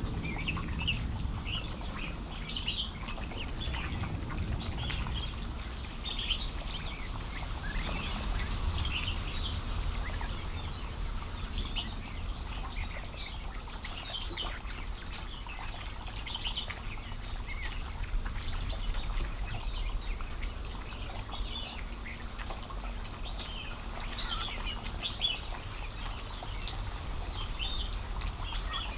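Songbirds chirping and calling over and over in short notes, several overlapping, over a steady low background rumble.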